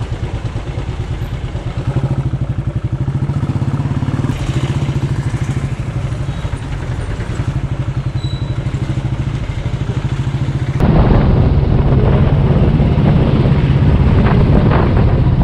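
Motorcycle engine running while riding, with a steady low pulsing beat under road noise. About eleven seconds in the sound suddenly gets louder and fuller.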